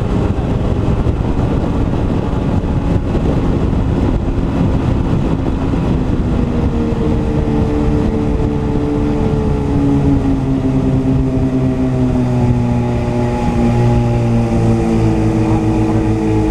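Sea-Doo Speedster jet boat under way, its twin two-stroke engines running steadily over a rush of wind and water. About halfway through, the engine note comes out clearly and slowly falls in pitch as the boat eases off.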